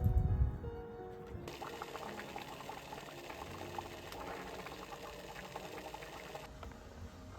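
Water pouring for about five seconds over background music, after a low thump right at the start.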